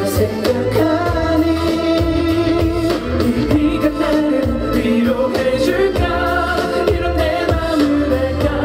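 K-pop song played loud over a concert sound system: a slow track with a pulsing bass under a sung melody.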